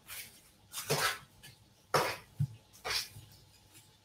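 A utensil scraping and knocking against a metal baking tray while roasted cauliflower is chopped up and turned over: a series of short, sharp scrapes, about five in a few seconds.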